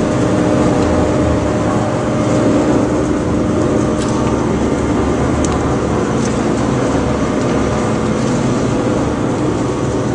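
Double-arm sigma blade mixer running, its 75 HP electric motor and gear reducer driving the blades through a thick paste. A steady, loud machine hum at a constant pitch.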